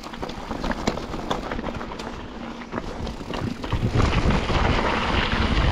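Mountain bike riding over a rough, stony trail: tyres crunching on loose stones and the bike rattling in many short sharp clicks and knocks. Wind rumbling on the microphone gets louder from just under four seconds in.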